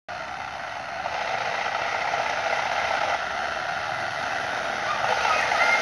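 Motorcycle engine running, growing slowly louder, with a higher whine stepping up in pitch near the end.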